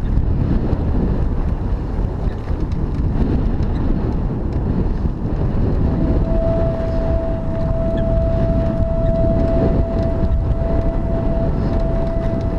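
Wind buffeting a GoPro camera's microphone over the low rumble of a mountain bike rolling along a bumpy grass-and-dirt singletrack. About halfway through, a steady high tone comes in and holds.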